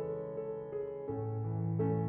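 Background piano music: soft melody notes over a held bass note that changes about a second in.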